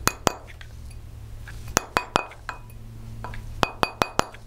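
Plastic mallet lightly tapping a sterling silver ring on a steel ring mandrel, to shape the freshly annealed ring into a true round. Short, bright metallic clinks come in quick groups of three or four, about three groups in all.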